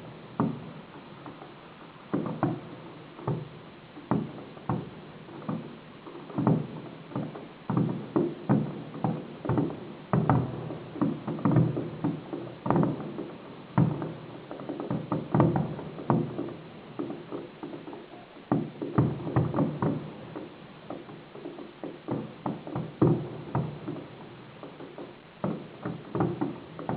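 Fireworks display: a continuous series of bursting aerial shells, about one to two bangs a second, each with a short echoing tail.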